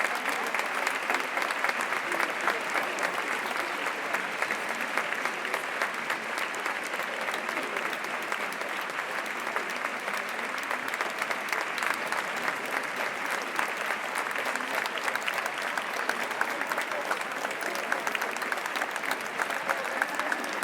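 Audience applause: many people clapping steadily without a break.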